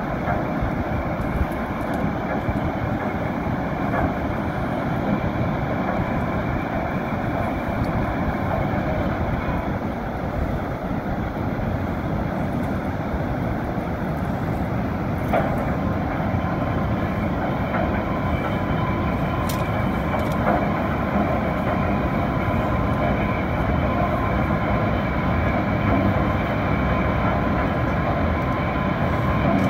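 River water rushing out under the steel gates of a movable dam, spilling over the sill as steady white water.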